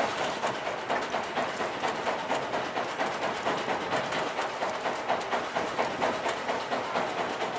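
Orca Rubicon spinning reel cranked fast on the retrieve, its gears and rotor giving an even clicking whir of about three to four pulses a second.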